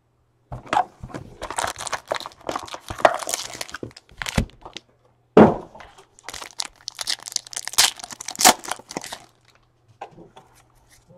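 A trading-card box being torn open and foil card packs crinkling and tearing as they are pulled out and ripped open, with several sharp louder rips midway, quietening near the end.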